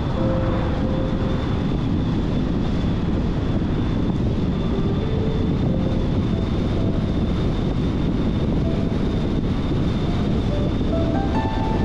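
A car driving at road speed: a steady low rumble of tyres and wind, with a faint constant high whine. Near the end, a few notes of background music come in.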